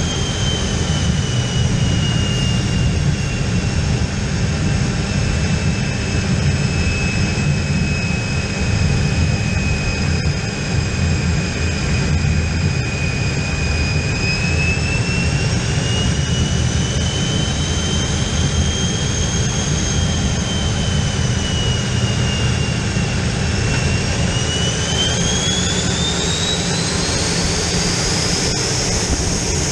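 Aero L-29 Delfín's Motorlet M-701 turbojet heard from inside the closed cockpit: a steady low rumble under a high compressor whine. The whine sinks slowly, then rises over the last few seconds as the engine speeds up.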